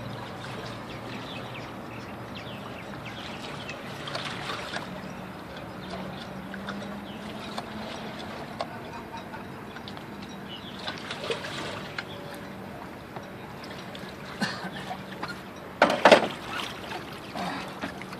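Water sloshing and lapping around a person standing in the water against a boat's hull, with small clicks and splashes as he moves, and a louder splash near the end.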